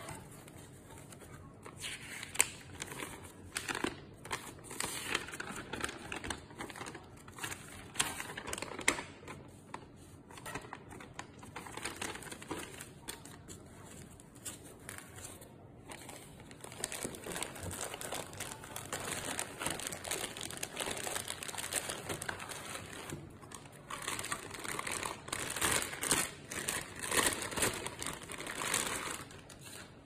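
Plastic wrapping crinkling and cardboard packaging rustling as a boxed door lever lock is unpacked by hand, in irregular spurts that are busiest and loudest in the last few seconds.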